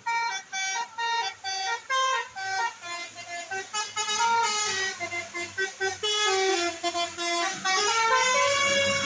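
Bus telolet horn playing a quick tune of short notes, about three or four a second, with several pitches sounding together, then holding a longer note near the end.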